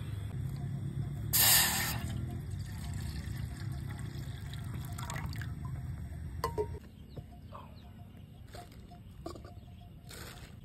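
Water poured from a bottle into a stainless steel pot. It splashes loudly as the pour starts, about a second and a half in, then runs on more quietly, with a few light knocks of metal later. A low rumble underneath stops about seven seconds in.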